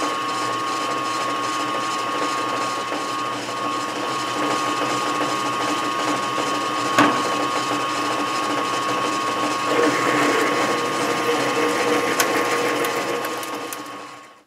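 Metal lathe running steadily with a constant gear whine while a drill fed from the tailstock drills a pilot hole into the spinning metal workpiece. There is a single sharp click about halfway through, and the cutting grows noisier in the last few seconds.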